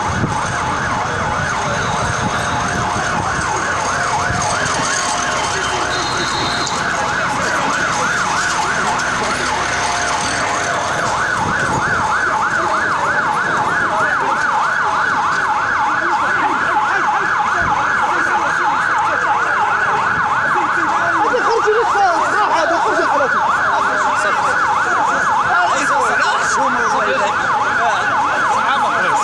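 Emergency vehicle siren sounding without a break, a fast warble swinging up and down several times a second.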